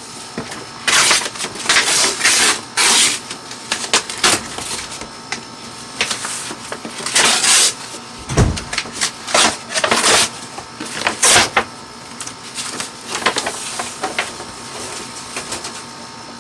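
A cardboard shipping box being opened and handled: irregular bursts of scraping and rustling of cardboard and packing material, with a dull thump about eight seconds in.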